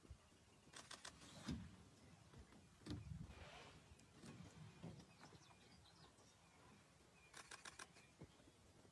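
Near silence: faint outdoor quiet with a few soft low thumps, faint bird chirps, and two short runs of quick clicks, about a second in and near the end.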